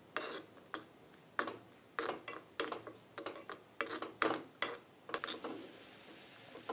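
A steel spoon clicks and scrapes against a clay pot while stirring raisins frying in ghee, about a dozen sharp strokes at uneven intervals. After about five seconds the strokes stop and a faint steady sizzle of the ghee remains.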